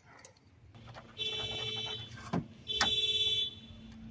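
An electronic alarm beeping: long, buzzy beeps of nearly a second each, repeating about every second and a half, over a low steady hum, with a single sharp knock between the first two beeps.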